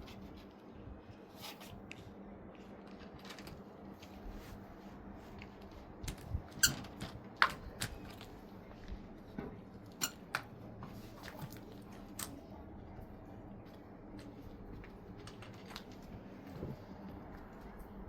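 Scattered sharp clicks and knocks, a cluster of the loudest ones about halfway through, over a faint steady hum.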